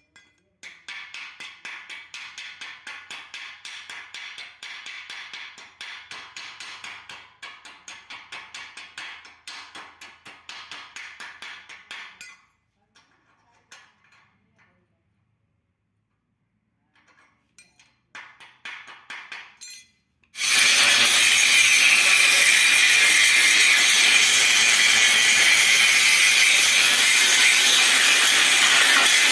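A quick run of short scraping and clinking strokes, from hand work on metal, lasting about twelve seconds. After a pause, an angle grinder starts sharply about twenty seconds in and runs loud and steady, working metal.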